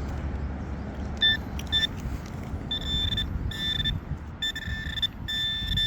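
Handheld metal-detecting pinpointer beeping as it is worked through dug soil: short beeps about a second in, then longer beeps closer together, becoming a steady tone near the end as it homes in on the buried target.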